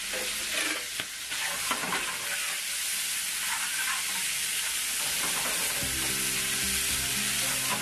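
Pancetta, onion and garlic sizzling in olive oil in a metal frying pan, stirred with metal tongs that clink against the pan now and then, as the pancetta's fat renders out.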